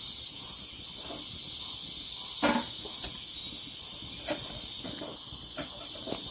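A night insect chorus, a dense steady high trill, with a few faint knocks.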